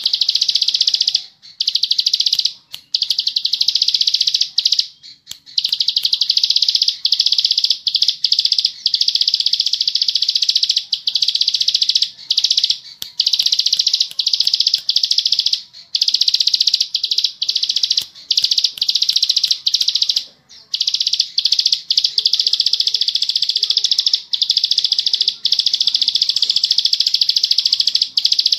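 Ciblek sawah, a small prinia, singing its 'ngebren' song: a long, very fast, tightly packed high trill held for several seconds at a time, broken by brief pauses.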